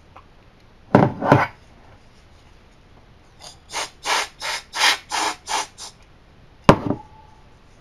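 Canned compressed air sprayed in short blasts to blow dust out of a computer's insides: two quick blasts about a second in, then a run of seven short puffs, about three a second. A sharp click near the end.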